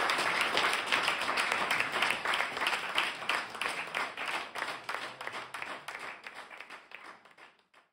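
Small audience applauding at the end of a song, the clapping thinning out and fading away to almost nothing near the end.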